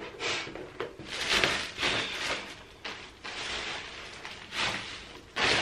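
Thin plastic shopping bags rustling and crinkling as they are handled, in several short bursts.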